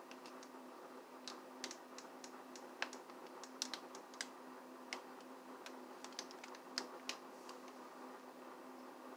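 Plastic snack pouch handled and turned in the hand, giving faint scattered crinkles and ticks over a steady low hum.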